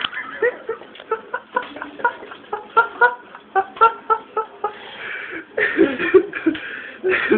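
Short, high-pitched voice sounds repeated quickly, about four a second, followed about five seconds in by a few louder, breathier bursts.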